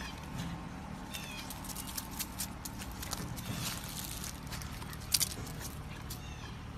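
A puppy giving a few short high squeaks as it tugs at a stick held by an adult dog, over light rustling and clicks from paws and dry leaves. One sharp click comes about five seconds in.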